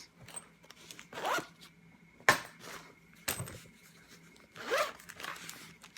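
Zipper on a small carrying bag being pulled, with two rising zips about a second in and near the end, and a couple of sharp clicks in between.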